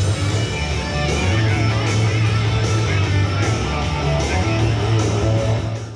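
Loud rock-style music with guitar, fading out at the very end.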